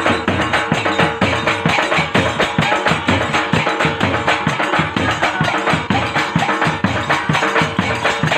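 Loud music with a quick, steady drum beat and a held tone under it.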